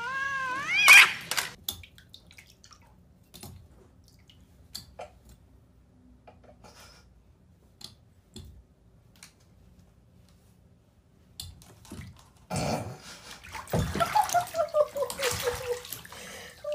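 Water splashing and sloshing in a bathtub, with faint scattered drips and splashes at first and louder, busier splashing from about three-quarters of the way in. A wavering, falling vocal sound joins it near the end. The first second holds the tail of a cat's meow, cut off by a sharp loud noise.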